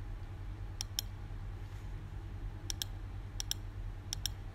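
Computer mouse button clicking in quick pairs, four times, over a steady low hum.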